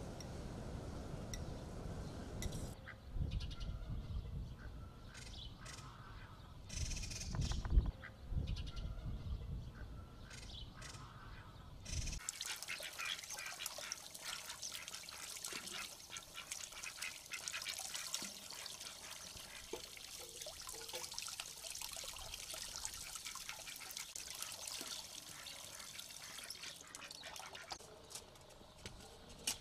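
Water running from a garden hose tap and splashing into a stone basin over a pumpkin being rinsed, starting about twelve seconds in.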